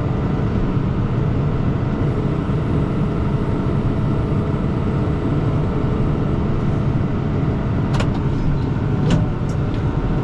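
Kubota M5-111 tractor's diesel engine running steadily, with two sharp knocks near the end.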